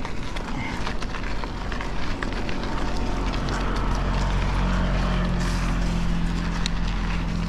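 A motor vehicle's engine running with a steady low hum that grows stronger about halfway through, with scattered light clicks over it.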